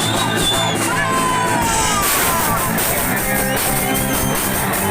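Punk band playing live and loud: distorted electric guitar, bass and drum kit, with sliding guitar notes over the top.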